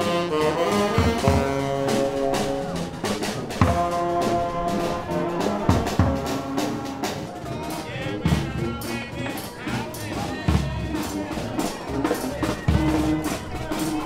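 Street brass band playing: saxophones, trombone and sousaphone holding notes over snare and bass drum hits.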